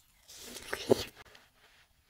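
Biting into a chunk of fresh watermelon: a wet, juicy bite about a second long, with a few sharp clicks at its loudest.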